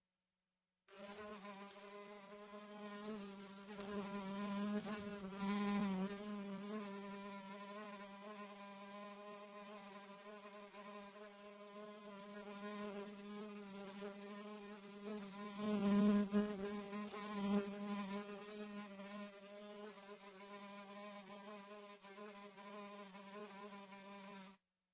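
A fly buzzing in flight: a steady low buzz whose pitch wavers slightly. It swells louder twice, about a quarter of the way in and again past the middle, and it starts about a second in and cuts off abruptly near the end.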